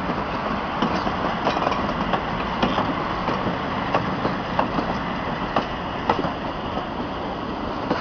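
PKP EP07 electric locomotive hauling a TLK passenger train past close by: a steady rumble of the train running, with its wheels clicking sharply over rail joints every half second or so.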